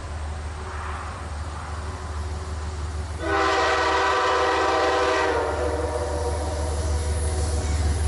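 Amtrak GE Genesis P42DC locomotive's air horn sounding one long chord of about two seconds, starting about three seconds in, over the low rumble of the approaching passenger train.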